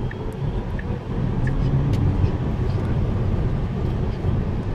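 Tyre and wind noise inside a Tesla Model S cabin at speed: a steady low rumble.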